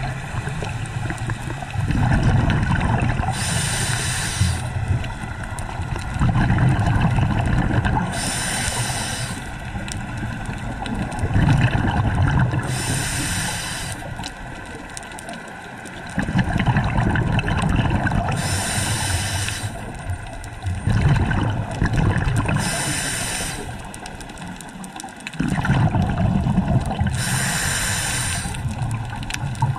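Scuba regulator breathing close to the camera. A short hiss on each inhale, about every four to five seconds, alternates with a longer, low bubbling rumble of exhaled bubbles.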